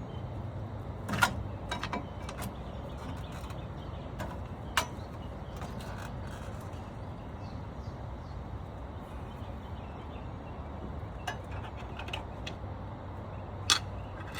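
A few sharp metal clicks and clanks from hand tools on the brake caliper bolts, the loudest about a second in and again near the end, over a steady low hum.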